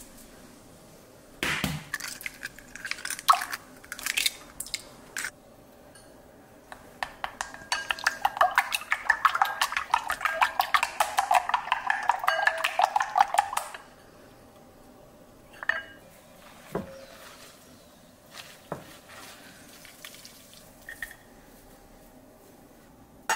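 A kitchen utensil clinking and knocking against a bowl. There are a few separate knocks early on, then about six seconds of rapid, steady clinking as of stirring a mixture, then a few scattered light clinks.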